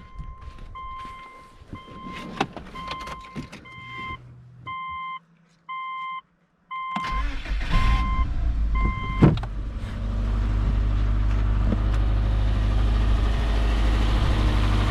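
Car warning chime beeping repeatedly, then a Subaru 2.5-litre EJ25 flat-four cranks and starts about seven seconds in and settles into a steady cold idle. It now runs without the earlier misfire, the timing belt that had jumped time having been replaced.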